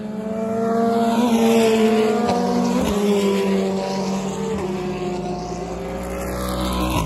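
GT sports racing cars passing one after another at speed, engines running hard. The engine notes hold steady with small shifts in pitch, loudest about a second and a half in, and build again near the end as another car approaches.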